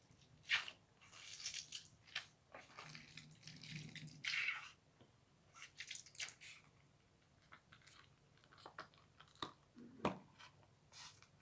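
Slime being squished and worked by hand: irregular sticky crackles and squelches, in bursts with short pauses.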